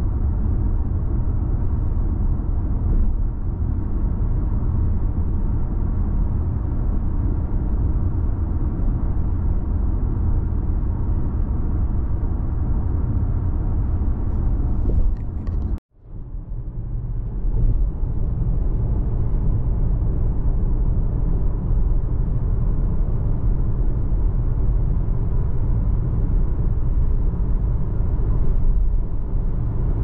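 Mazda CX-30 20S driving: a steady low rumble of engine and road noise. About halfway through, the sound cuts out suddenly for a moment, then comes back.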